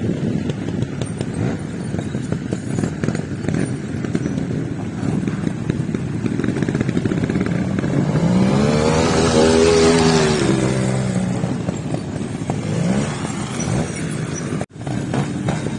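Trials motorcycle engine running as the bike works through the section. About eight seconds in, the engine revs in a burst that rises and then falls in pitch, the loudest part, as the bike passes close. The sound cuts out for an instant near the end.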